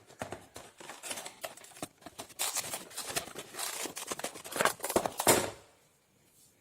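Packaging being opened by hand to unbox a battery-powered pedicure tool: rustling, crackling and clicking of a box and its plastic, with a few louder tearing bursts near the end, then it stops about a second before the end.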